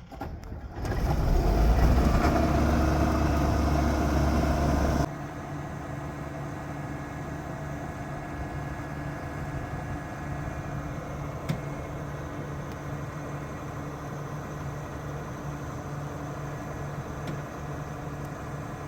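John Deere combine's diesel engine running while the machine is backed slowly off a tilting trailer. It is loud for the first few seconds, then drops suddenly to a quieter, steady run.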